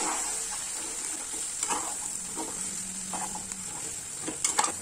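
Stuffed okra sizzling in a little oil in an aluminium pot, dry-frying with no water added, while a metal spatula stirs it and now and then scrapes against the pot.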